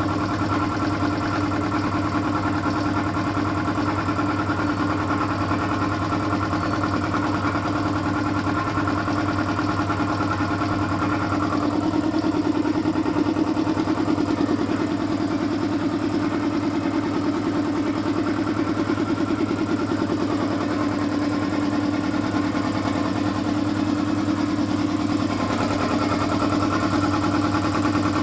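A 2 hp compressor running steadily with a constant mechanical hum, its tone shifting slightly a couple of times.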